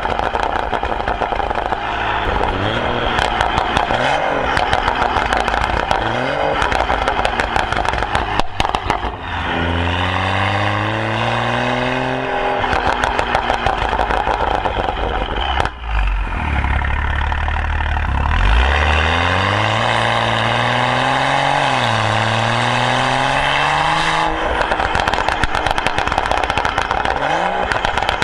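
BMW 435i's N55 turbocharged straight-six, on an ECU tune for extra pops and crackles and breathing through an M Performance exhaust with downpipe, high-flow cat and the centre resonator removed: rapid sharp crackles and pops off throttle. Twice the revs climb in long pulls, about ten seconds in and again from about eighteen seconds, the second with a brief dip partway. Crackling returns near the end.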